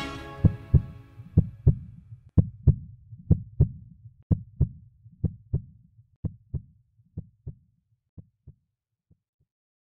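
Soundtrack outro: the music dies away into a heartbeat-like double thump, about one pair a second, fading steadily until it stops near the end.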